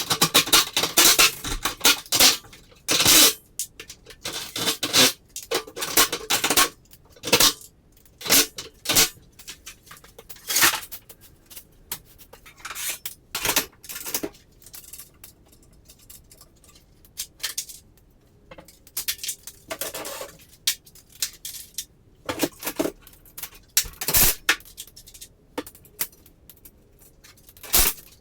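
Irregular metal clanking and rattling, a string of sharp knocks with short pauses between them, as parts and tools are handled during work on the garage door.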